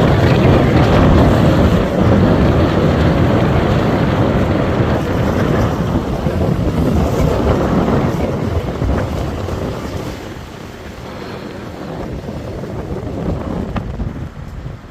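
Blizzard wind buffeting the microphone in heavy, rumbling gusts, easing a little about ten seconds in.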